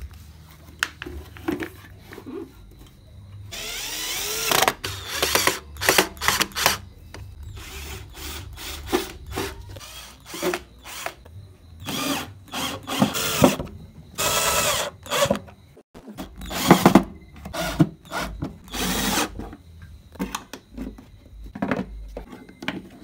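DeWalt cordless drill driving screws to fix a steel DIN rail to a plywood board, running in a series of short bursts. On the longer burst the motor's whine rises in pitch as it spins up. Clicks and knocks of handling come between the bursts.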